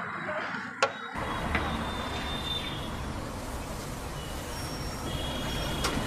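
A metal spatula clicks sharply against a flat iron griddle, then steady street traffic rumble takes over, with a few faint short high tones in it.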